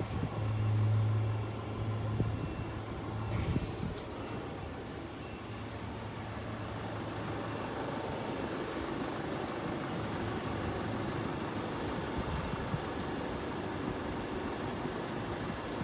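Dongfeng compactor garbage truck's diesel engine idling, a steady low hum that is strongest in the first few seconds, with a faint high whine joining about seven seconds in.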